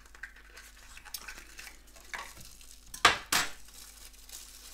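Hands handling the Rollei Hear:Me double-screw adapter and its packaging: light rustling and small clicks, with two sharper clicks just after three seconds in.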